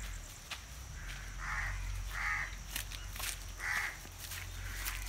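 A crow cawing three times, short harsh calls about a second and a half in, just after two seconds and near four seconds, with scattered faint ticks and a low steady rumble beneath.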